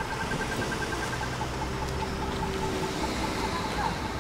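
Tram running, a steady rumble and hum, with a rapid high beeping that fades out about a second and a half in.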